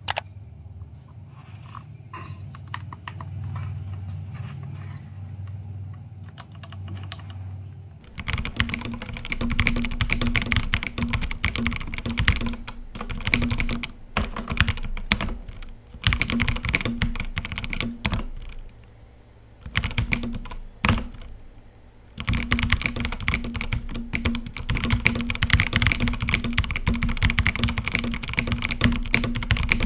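Typing on an EvoFox Ronin TKL mechanical keyboard. Scattered key presses for the first several seconds, then fast, continuous typing broken by a few short pauses.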